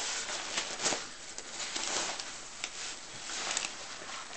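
Rustling and swishing of winter clothing being put on, with scattered small clicks and brushes.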